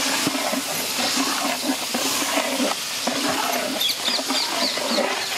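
Guava pulp cooking in ghee in a hot pan, with a steady hiss of sizzling and bubbling. A hen clucks in the background.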